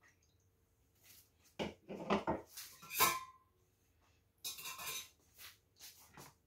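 Kitchen things clinking and knocking as they are handled on a countertop, in several short clusters spread over a few seconds.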